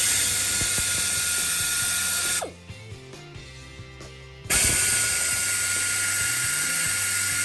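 Pneumatic air ratchet running in two bursts, each a loud hiss of air with a steady whine, spinning the water pump bolts. The pitch drops off as the tool winds down at the end of each burst.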